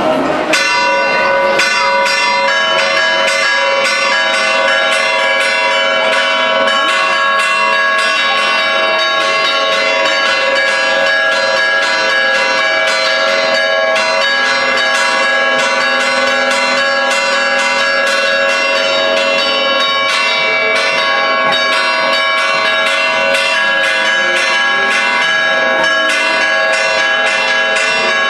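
Church tower bells pealing festively for Easter, several bells struck in quick, overlapping strokes so that their tones ring on together without pause. The peal sets in about half a second in.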